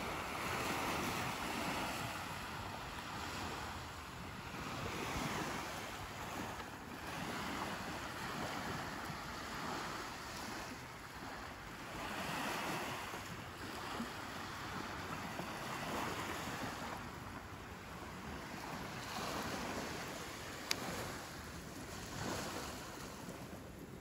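Small waves breaking and washing up a sandy beach, the surf swelling and fading every few seconds. A single sharp click sounds near the end.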